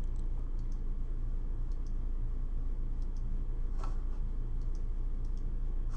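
Faint, scattered computer mouse clicks, a dozen or so, one slightly louder about four seconds in, over a steady low hum.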